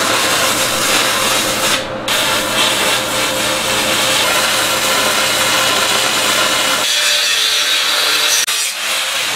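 Angle grinder grinding steel tubing, a steady rasping hiss. It breaks off briefly about two seconds in, and about seven seconds in it turns higher and thinner.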